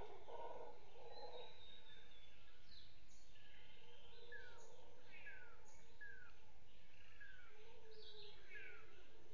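Forest birds calling: a series of short, falling chirps about once a second, with other higher, scattered calls over a steady low background rumble. A low, rough call fades out about a second and a half in.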